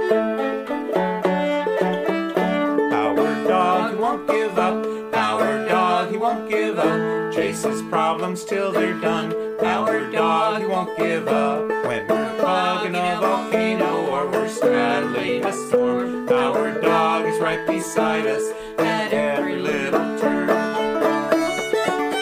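Instrumental string-band music led by a fast-picked banjo, with no singing.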